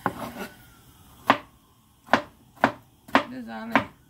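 Kitchen knife chopping food on a cutting board: six separate, sharp knocks at an uneven pace, roughly one every half second to second.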